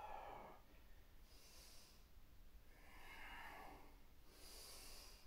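Faint, slow breathing of a man, two soft breath cycles, each a quieter breath followed by an airier, hissing one.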